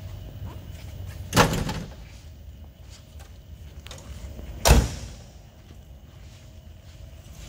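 The steel doors of a 1969 Chevrolet Camaro are shut twice, making two solid thuds about three seconds apart.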